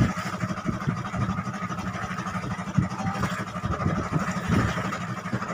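Motorized outrigger fishing boat's engine running steadily, a constant drone.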